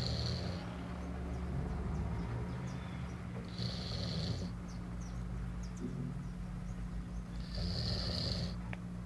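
A sleeping pet snoring, with a loud, hissy, rasping breath about every four seconds, three in all.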